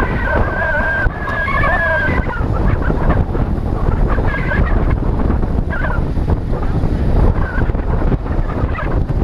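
Wind rushing over a helmet-mounted GoPro in a skeleton housing while riding in a moving road-race pack. High squeaking tones cut through, one drawn-out squeal in the first two seconds, then several short squeaks.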